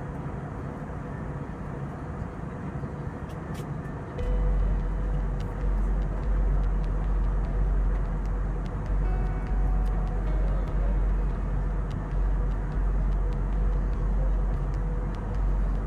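Steady rushing cabin noise of an Airbus A320 airliner in descent. About four seconds in, background music with a strong pulsing bass comes in over it and the sound gets louder.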